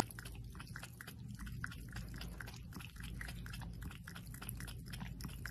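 A cat lapping water from a glass cup: a quick, even run of small wet laps, with a low steady hum underneath.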